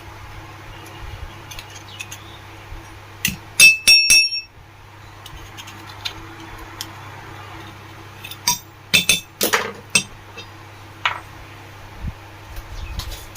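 Small metal fan parts and tools clinking and tapping against each other on a workbench. There are scattered light taps, a few bright ringing clinks about three and a half seconds in, and another cluster around nine seconds.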